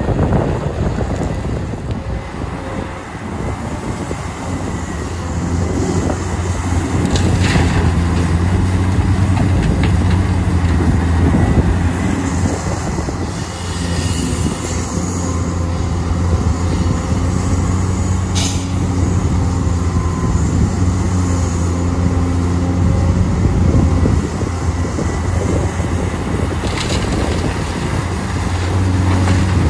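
Large Caterpillar hydraulic excavator's diesel engine running under load as it digs, a steady deep hum that grows louder about five seconds in. A few sharp knocks stand out from it, three times.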